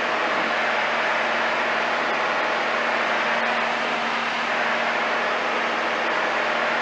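Light aircraft's piston engine and propeller running steadily, heard inside the cockpit as an even drone with a rush of noise over it.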